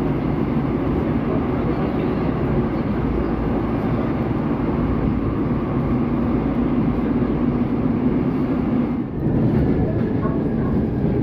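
Subway train running between stations, heard from inside the passenger car: a steady rumble and roar of wheels and running gear. The noise dips briefly about nine seconds in, and a faint whine comes in near the end.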